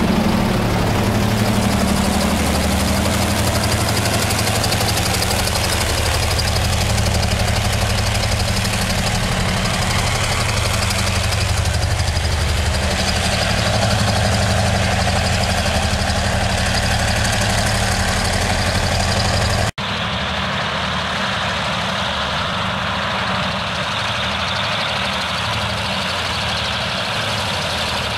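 Diesel freight locomotives running close by with a heavy, steady low engine drone. About two-thirds of the way through it cuts abruptly to a quieter, more distant rumble of a train approaching.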